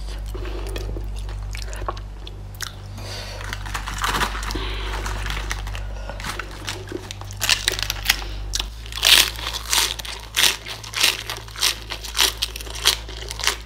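Eating crisp romaine lettuce: a run of sharp, irregular crunches from bites and chewing, about two or three a second, starting around halfway through.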